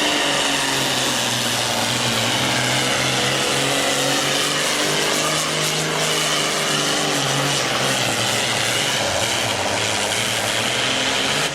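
Super farm class pulling tractor's modified diesel engine running hard at high revs under load, a steady loud drone with heavy exhaust noise over it. Its pitch sags slightly about eight seconds in.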